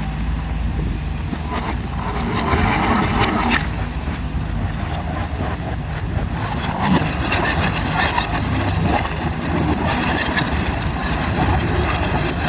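Excavator diesel engines running with a steady low rumble, with uneven mechanical noise over it.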